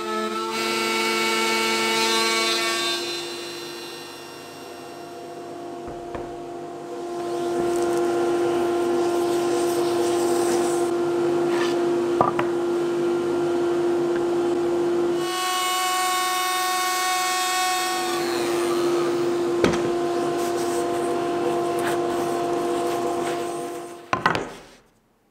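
Electric power tool cutting wood, its motor whining at a steady pitch over the rasp of the cut. It eases off for a few seconds about four seconds in and stops shortly before the end.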